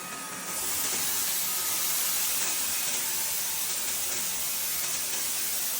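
Two cordless stick vacuums running at once, one of them a Wyze Cordless Vacuum S: a steady high-pitched hissing whir with a faint steady whine. It starts at once and builds to full strength within the first half second.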